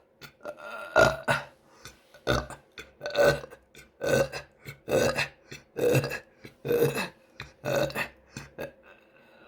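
A woman burping over and over: about nine short burps in a row, roughly one a second.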